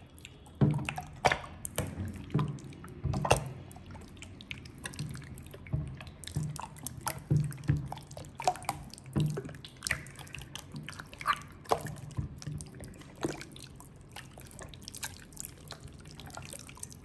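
Giant clear slime being kneaded, squeezed and pulled by hand while silver glitter liquid soap is mixed into it, making wet, sticky clicks and pops at an irregular pace.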